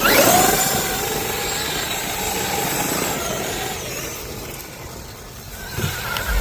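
Traxxas X-Maxx electric RC monster truck driving, its motor whine rising and falling over tyre noise, loudest at the start and dying down about four to five seconds in, with a low thump near the end.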